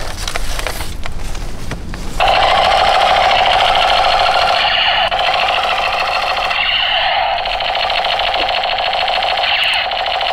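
Battery-powered toy machine gun firing: a continuous rapid-fire rattle that starts about two seconds in and holds steady. A few handling clicks come before it.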